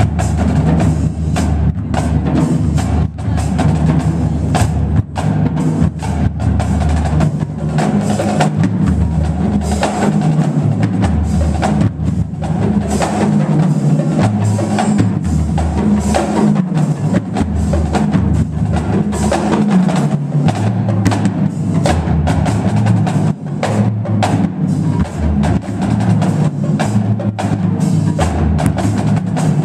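Marching drumline playing a fast, dense cadence on snare drums, tenor drums and tuned bass drums, the bass drums stepping between different pitches.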